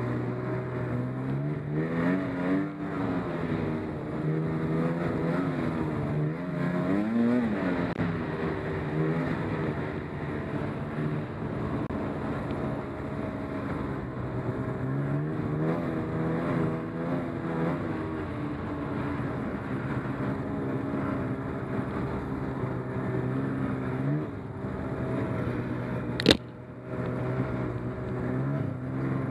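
Snowmobile engine running under way, its pitch rising and falling as the throttle is opened and eased off. A single sharp knock comes near the end.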